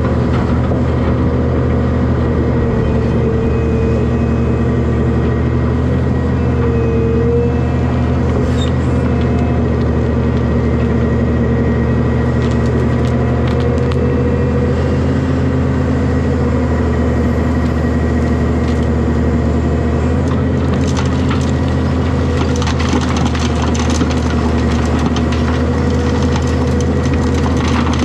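Hyundai excavator's diesel engine running steadily under load, with a hydraulic whine that comes and goes as the machine works. Crunching and clattering of material in the bucket, heaviest in the last third.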